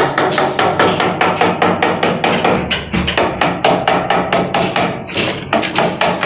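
Hammer blows chipping through brick masonry to open a pathway for a pipe, a quick, steady run of strikes about four to five a second.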